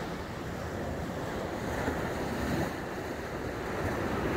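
Surf breaking and washing up a sandy beach in a choppy sea, a steady rush that swells and eases, with wind buffeting the microphone.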